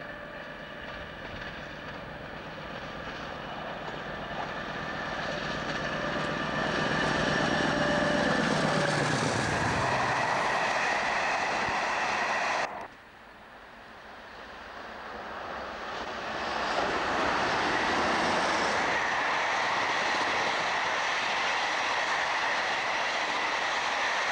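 A British Rail diesel locomotive hauling a passenger train past at speed: the engine grows louder as it approaches, its note drops as it goes by about ten seconds in, then the coaches roll past. The sound cuts off abruptly about thirteen seconds in, and a second train's coaches then rise to a steady rumble of wheels on the rails.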